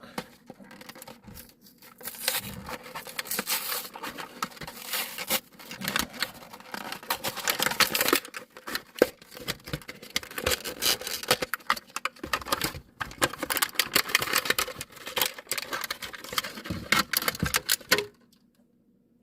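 Toy car packaging being torn open and worked at by hand: a long run of irregular rustling, tearing, crinkling and small clicks as a die-cast model car is pried out of its box, stopping about a second before the end.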